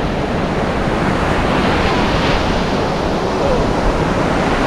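Ocean surf breaking on the beach: a steady, loud rush of waves.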